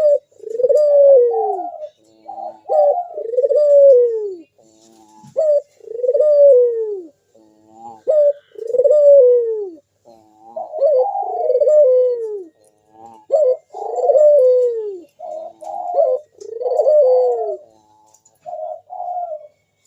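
Local puter dove cooing over and over in full song: repeated drawn-out falling coos, about one every second or two, mixed with short clipped notes, stopping just before the end.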